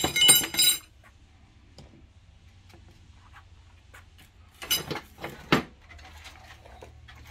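Metal parts and hand tools clinking and clanking while a Seadoo jet pump is put back together: a few ringing clinks at the start, then a short cluster of louder clanks about five seconds in.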